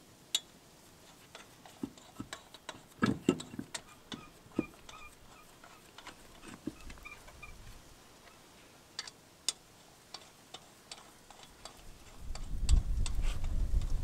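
Light metallic clicks and clinks of lug nuts being spun by hand onto the wheel studs of a steel space-saver spare wheel, with a quick cluster of clicks a few seconds in. Near the end a louder low rustling rumble comes in.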